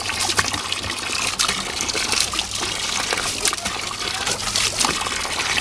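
Water from a hose spraying and splashing, a steady rush full of small spattering splashes.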